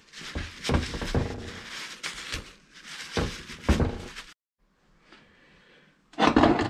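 Hands handling the steel pinion and bearing of a differential on a metal workbench: rag rustling with scrapes, clicks and clinks of metal. The sound breaks off to silence about four seconds in, then comes a short loud clatter just before the end.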